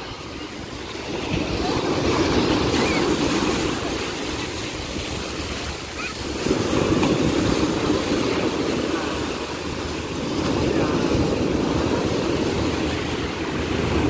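Surf breaking and washing up a sandy shore, the rush of the waves swelling and easing in three surges.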